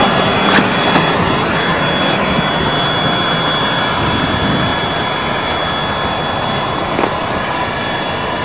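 Automatic plastic liner welder and its equipment running steadily, a continuous machine noise with a thin, steady high whine, and a couple of faint clicks.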